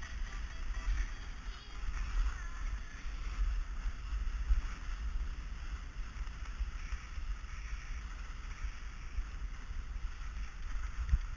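Wind buffeting the action camera's microphone as the skier runs downhill, a gusty low rumble, over a steady hiss of skis sliding on snow.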